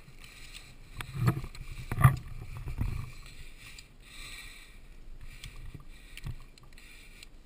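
Handling noise from a climber's gear and a rescue bag: a few sharp knocks and clunks in the first three seconds, the loudest about two seconds in, then a low rustling.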